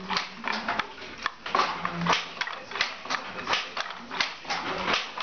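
Wooden handloom being worked: a rapid, irregular stream of wooden clacks and knocks, about three a second, from its moving parts.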